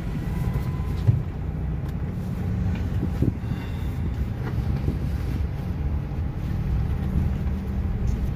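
Cabin noise inside a Toyota HiAce Premio shuttle van driving off through town: a steady low rumble of its diesel engine and tyres, with a couple of faint knocks.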